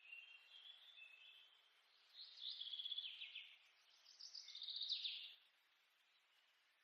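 A small songbird singing: faint whistled notes, then two louder bursts of rapid chattering trills a little over a second each, over faint background hiss.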